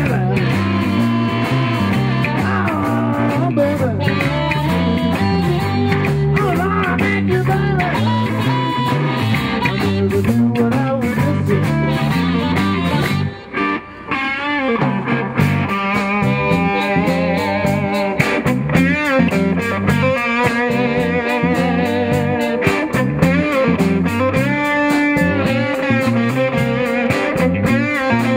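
Live electric blues band playing, with electric bass and electric guitar and wavering, bending lead notes. The sound drops out briefly about halfway through.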